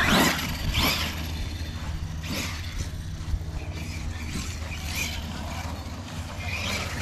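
Arrma Kraton EXB brushless electric RC truck driving over grass in short bursts of throttle. Its motor and tyres surge several times.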